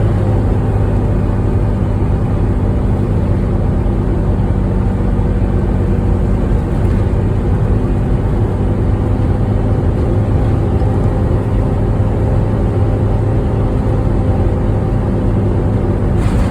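Volvo B9TL Wright Eclipse Gemini double-decker bus running with a loud, steady hoover-like drone, the 'hoovering' sound of its engine cooling fan, over its six-cylinder diesel engine.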